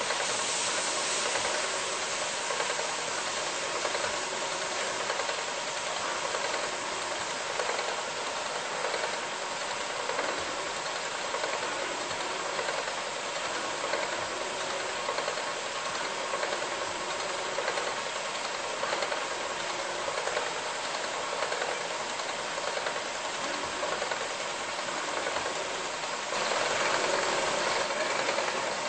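Steady machine-shop running noise: an even hiss with a faint hum. It gets louder near the end.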